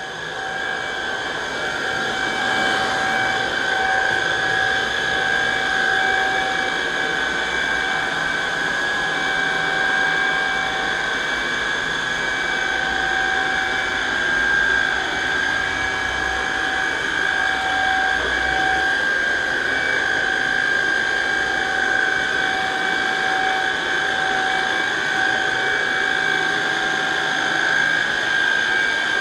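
Vacuum cleaner running steadily with a high motor whine, growing louder over the first couple of seconds.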